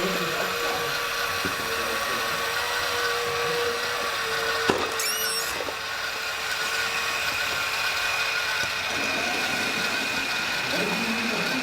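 Small electric motors and gearboxes of radio-controlled model trucks and construction machines whining steadily, with one lower whine that stops about nine seconds in. One sharp click just under five seconds in, followed by brief high-pitched chirps.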